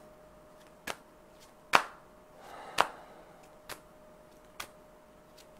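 A series of sharp hand snaps, about one a second, as an oracle card deck is readied for a draw, with a soft rustle a little past halfway.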